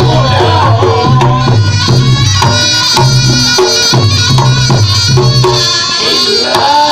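Loud Reog Ponorogo gamelan accompaniment: drums and percussion keep a steady beat under a wavering melody line.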